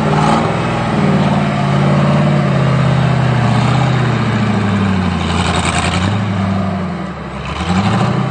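Off-road rock-racing buggy's engine revving hard under load as it climbs boulders, held high with small dips and rising again near the end. Short bursts of noise from the tyres spinning in loose dirt come about five and a half seconds in and near the end.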